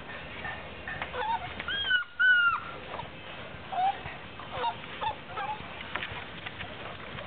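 Six-week-old Presa Canario puppies squealing and whining as they wrestle in a pile, with short high yelps scattered through. The loudest is a pair of arching squeals about two seconds in, over light scuffling.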